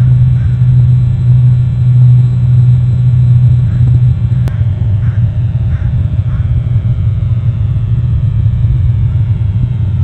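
A loud, steady low rumble, with faint crow caws repeated every half second or so between about four and six and a half seconds in, and a single sharp click about four and a half seconds in.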